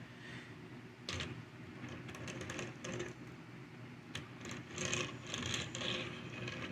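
Plastic clicks and rattles from a Transformers Siege Optimus Prime action figure being handled in its truck mode, sharper about a second in and busier near the end, over a steady low hum.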